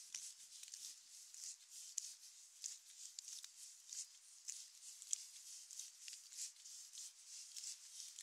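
Light rain pattering and dripping around the listener, with many small sharp drops and the soft, regular scuff of footsteps on wet ground at walking pace.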